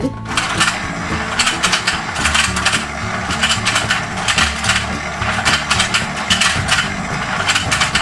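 Battery-powered rotating toy fishing game running: its motor and plastic gears turn the pond with a steady, dense clicking rattle.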